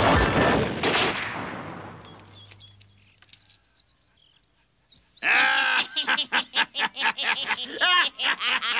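A cartoon crash dies away over the first two seconds, leaving faint bird chirps in a quiet stretch. About five seconds in, a man starts laughing loudly in quick repeated pulses.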